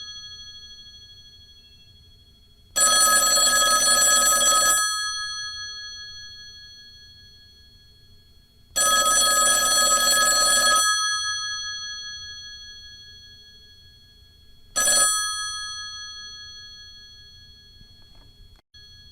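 Intercom ringing: two bell-like rings of about two seconds each, some six seconds apart, then a brief third ring, each ring dying away slowly.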